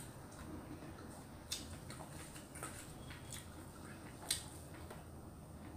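Quiet eating by hand: chewing a mouthful of rice and vegetables, with a handful of short, sharp clicks and smacks, the sharpest about four seconds in.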